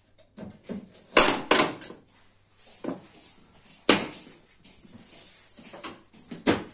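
Sharp knocks and clatters of laminate flooring work: two loud knocks about a second in, another near four seconds and one near the end, with lighter taps between.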